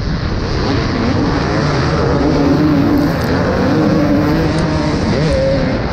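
250-class motocross bike engine racing, its pitch rising and falling as the throttle opens and closes and the gears change, heard loud and close from on the bike.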